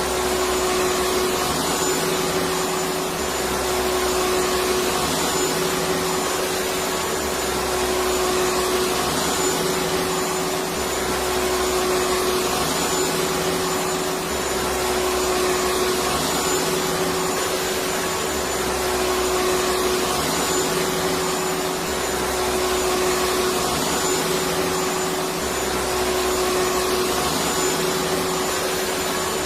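Vacuum cleaner running steadily: a continuous motor hum and rushing air with a steady whining tone, the low hum swelling slightly about every three and a half seconds.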